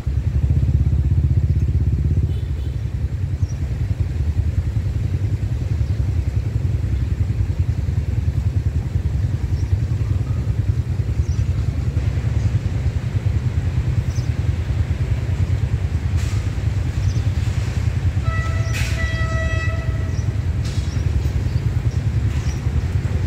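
Steady low rumble of motorbikes and other traffic idling behind a closed railway crossing barrier. A vehicle horn sounds once for about a second and a half near the end.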